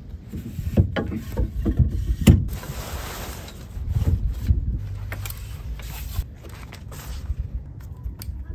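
Clicks, knocks and clanks of an aluminium tow pole being handled and seated in its mount under a boat's Bimini top, over a steady low rumble.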